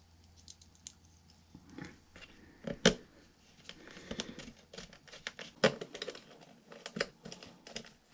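Small nuts and plastic antenna parts being handled and fitted onto a drone remote controller: scattered light clicks, taps and rustles, with a sharp knock about three seconds in and two more later.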